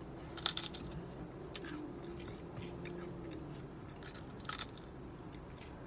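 Crunchy bites and chewing of ice cream cones, a scatter of short crisp crackles. The loudest comes about half a second in and another about 4.5 seconds in.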